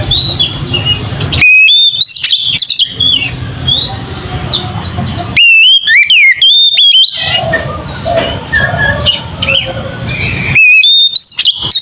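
Oriental magpie-robin (kacer) singing loud, full whistled phrases with rapid rising and falling sweeps. The song comes in three bursts of about one to one and a half seconds each, with quieter chirping and background noise between them.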